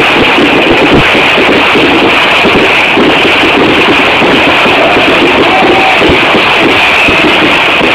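Loud, dense music playing without a break.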